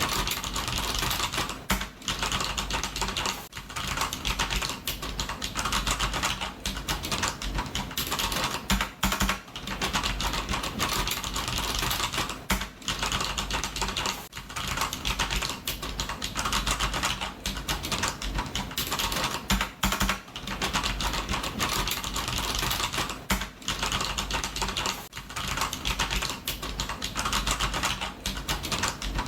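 Fast typing on a computer keyboard: a dense patter of key clicks in continuous runs, pausing briefly every second or two.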